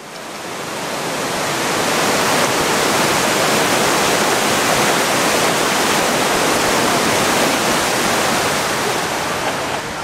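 River cascade, white water rushing over rock ledges: a steady rush of water that swells up over the first two seconds and eases slightly near the end.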